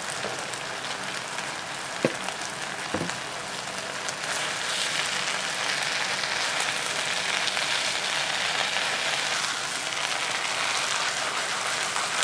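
Water spinach sizzling as it is stir-fried in hot oil and chili paste in a pan, with a steady crackling hiss that grows louder about four seconds in as the greens are tossed. There are two short knocks of the spatula against the pan about two and three seconds in.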